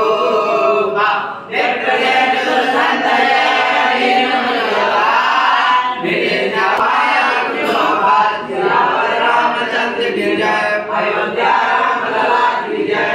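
A group of voices singing a Hindu devotional chant.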